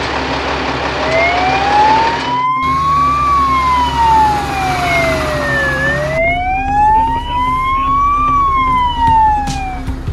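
Fire truck siren in wail mode, its pitch rising and falling slowly twice, each sweep taking about two and a half seconds, over a steady low hum.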